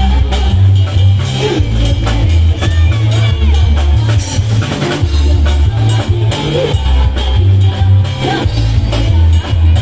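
Loud amplified live music from electone keyboards over a drum beat, with a heavy repeating bass line.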